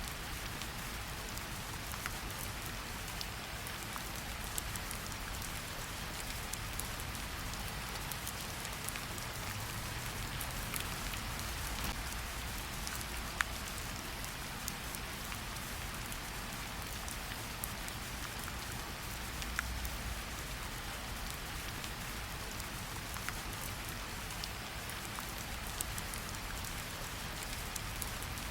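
Steady rain falling, with occasional sharp crackles from a wood fire in a fireplace.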